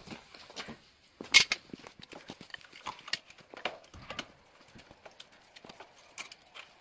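Irregular knocks and clatter of a wooden door frame covered in wire mesh being lifted and fitted onto its hooks, with one sharp knock about a second and a half in.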